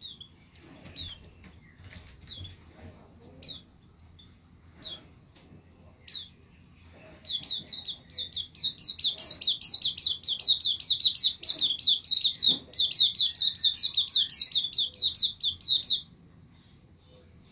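Caged white-eye (pleci) singing: single high chirps about once a second, then from about seven seconds in a loud, rapid string of repeated high notes, about four a second, lasting some nine seconds before it stops.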